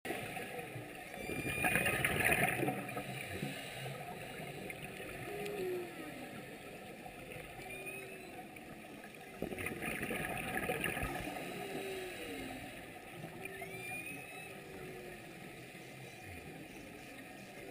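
Humpback whale song heard underwater: a string of calls that glide up and down in pitch, some higher whoops among them, over a steady underwater hiss. Two louder rushes of bubbling from a scuba diver's exhaled breath come about two and ten seconds in.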